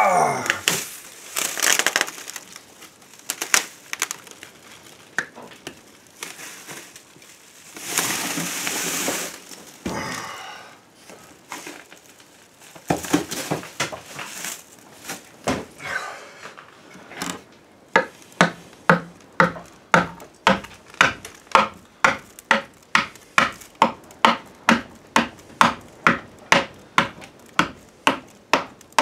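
Gritty crunching and scraping of perlite-and-cement mix being packed into a steel forge case. Past the halfway mark a mallet starts knocking at the packed door opening, a steady run of sharp knocks about one and a half a second.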